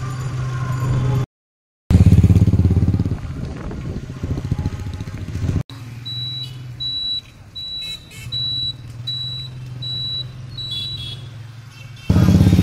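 A motor vehicle running with a steady low engine hum and road noise, broken by a brief dead gap about a second in. Past the middle, a run of about eight short, high electronic beeps comes at an even pace, a little under two a second.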